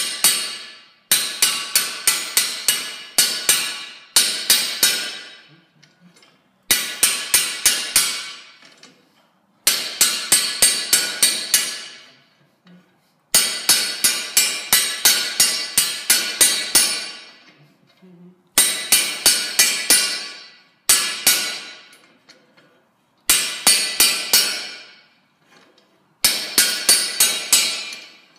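Hand hammer striking a fullering tool over red-hot steel pipe on an anvil, necking the pipe in to form a bamboo node. It comes in bursts of several quick blows, about three or four a second, with short pauses between bursts, and each blow rings.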